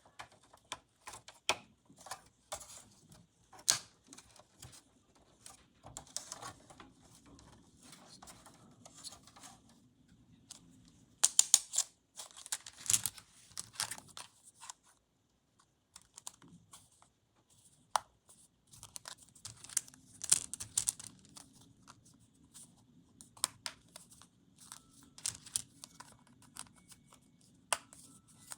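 Hands unpacking toys: packaging tearing and crinkling, with scattered light clicks and taps as small toy pieces are handled. The rustling comes in louder bursts near the middle and again later on.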